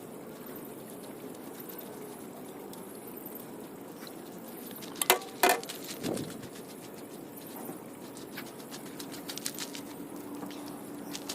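Steady background hiss broken about five seconds in by two sharp clicks half a second apart, then a duller knock.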